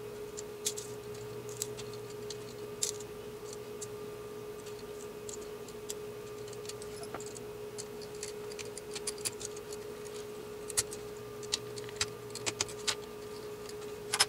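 Scattered light clicks and taps from hands handling the plastic parts, cables and connectors of an opened CD player, more frequent in the second half, over a steady hum.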